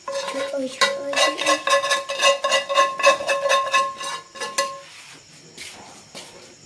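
A spoon stirring briskly in a metal bowl, clinking against the side several times a second while the bowl rings with a steady tone. The clinking stops about five seconds in.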